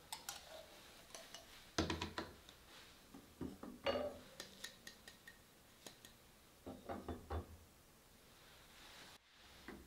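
Light clinks and taps of a ceramic coffee dripper filled with grounds being lifted and handled against its wooden holder and glass server, in several short clusters of clicks, the loudest about two and four seconds in.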